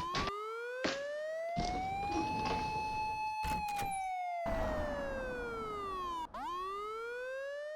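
Emergency siren sound effect wailing: one slow rise, a brief hold, a long fall, then rising again near the end, with scattered clicks and hiss underneath.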